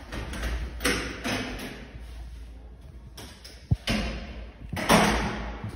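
A door being opened and closed: thuds and rustling, with one sharp click, like a latch, a little past halfway.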